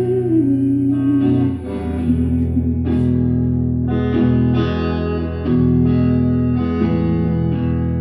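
Live solo guitar playing an instrumental passage between verses, with chords struck in a steady rhythm; the singer's last held note falls and fades out about a second and a half in.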